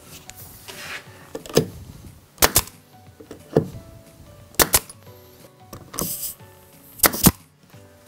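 Pneumatic nail gun driving nails into oak, firing three times about two seconds apart, each shot a sharp double crack.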